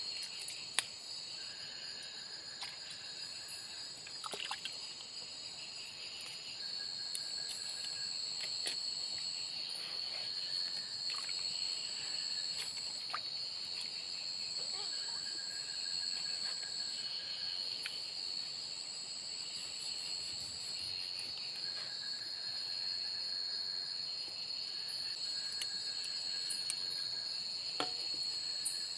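Night chorus of insects: a steady high-pitched trill with other insect calls coming in and out in stretches of a second or two. A few sharp clicks can be heard, one about a second in and one near the end.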